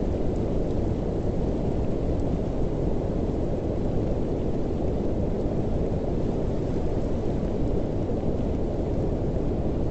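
Steady, unchanging low noise, heaviest in the bass, with no tones or distinct events: the masking bed of a subliminal audio track.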